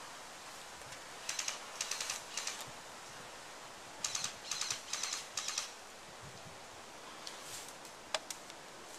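Airsoft electric rifle firing several short full-auto bursts of rapid clicks, in two strings about two seconds apart. A single sharp click follows about eight seconds in.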